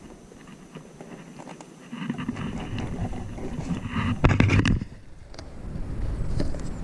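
A wels catfish is handled over the side of an inflatable boat and lowered into the water for release. There is rubbing and handling noise against the rubber hull, with a short loud burst of splashing a little after four seconds in.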